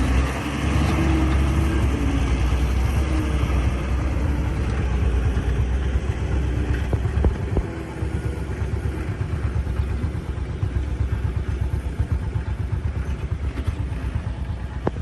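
Excavator's diesel engine running steadily, with a few sharp metal clanks. About eight seconds in, the low rumble turns choppier and pulses unevenly.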